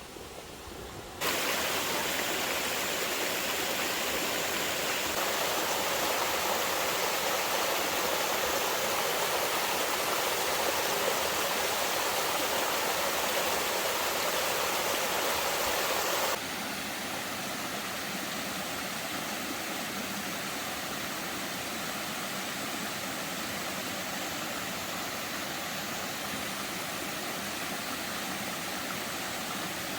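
Steady rushing water, loud at first, then dropping suddenly to a quieter steady rush about sixteen seconds in.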